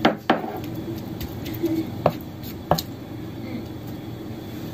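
A few sharp knocks and taps of kitchenware: two close together at the start, then two more spaced about a second apart, over a steady low hum.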